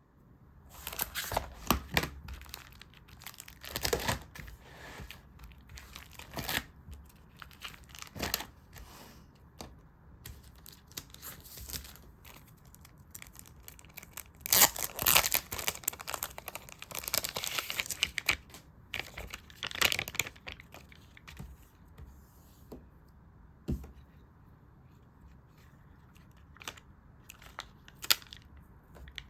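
Stickers being peeled from their backing and paper being handled: irregular crackly peeling and rustling with light taps, busiest in the first few seconds and again in the middle, sparse near the end.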